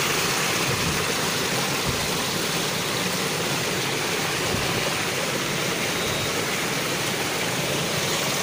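Shallow rocky stream running, a steady even rush of water.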